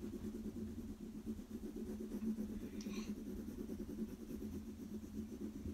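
Pencil shading on sketchpad paper: rapid back-and-forth strokes give a continuous low, scratchy rubbing. There is a brief high squeak about three seconds in.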